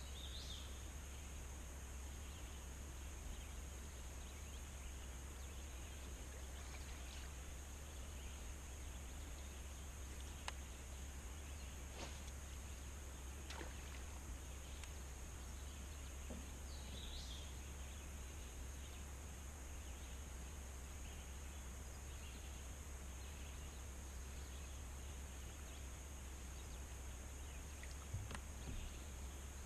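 Quiet outdoor ambience: a steady hiss with a constant high-pitched whine and a low hum. A faint bird chirps about four times, and there are a few sharp clicks around the middle and near the end.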